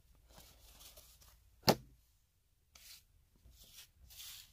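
Hockey trading cards being handled and set down on a table: faint rustles and light contacts, with one sharp tap a little under two seconds in.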